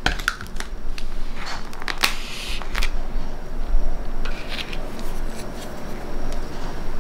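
Scattered light clicks and rustles of tableware being handled: chopsticks and a paper instant-noodle cup of soup on a wooden table.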